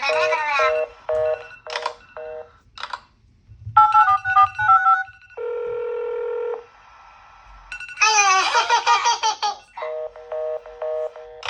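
Baby phone app sounds: runs of short, evenly spaced electronic two-tone phone beeps near the start, about four seconds in and near the end, and a steady ringing tone held for about a second around the middle. A brief voice with sliding pitch comes in about eight seconds in.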